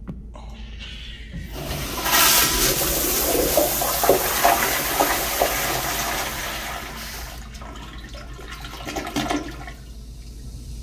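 Kohler Kingston Waterguard commercial toilet flushing from a flushometer valve. A rush of water starts about a second and a half in and swirls loudly through the bowl for several seconds, then dies away, with a short second surge near the end as the flush drains down.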